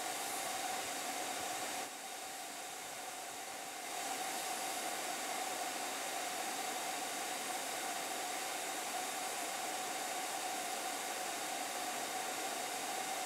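HVLP turbine paint sprayer running while spraying paint: a steady rushing hiss of air with a constant whine in it. It drops a little in level for about two seconds, about two seconds in, then comes back up.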